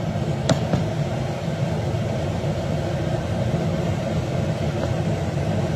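Steady low rumble and hum of a stove burner running under an empty wok, with one sharp click about half a second in.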